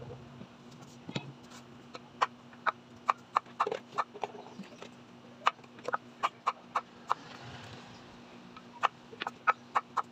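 Chef's knife tapping on a bamboo cutting board as an eggplant is sliced: a quick, irregular series of short, sharp taps over a faint steady hum.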